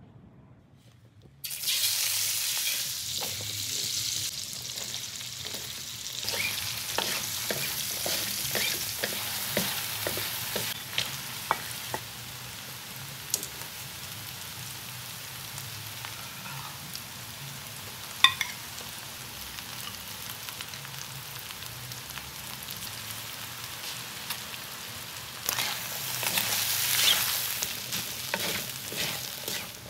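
Flaked milkfish, onion and garlic sizzling in oil in a metal wok, stirred and turned with wooden spatulas that scrape and click against the pan. The sizzle begins abruptly about a second and a half in and grows louder again near the end.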